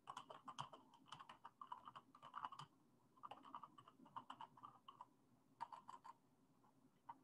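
Faint typing on a computer keyboard: quick runs of keystrokes broken by short pauses, with the last few taps near the end.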